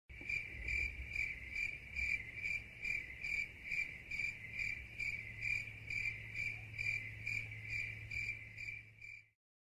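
A cricket chirping at an even pace, about three high-pitched chirps a second, stopping shortly before the end.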